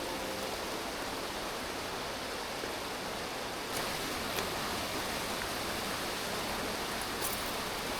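Mountain stream rushing steadily, with a few faint clicks about halfway through.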